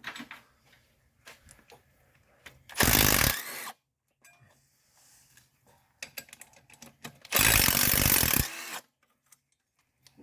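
A hand tool working bolts off the engine in two loud runs of about a second each, some five seconds apart, with light metal clicks from tools being handled in between.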